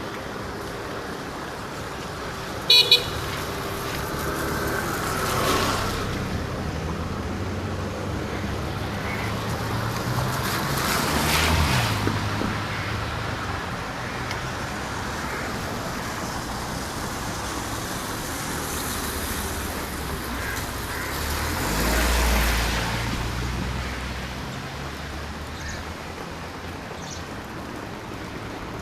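Road traffic, with vehicles passing one after another: three swell up and fade away. A short double horn toot sounds about three seconds in.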